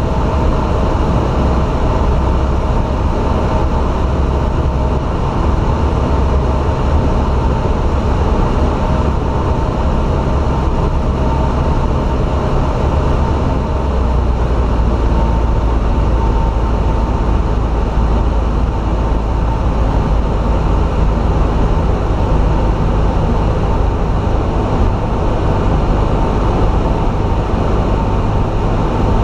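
Steady drone of a single-engine light aircraft's piston engine and propeller in cruise, heard inside the cabin.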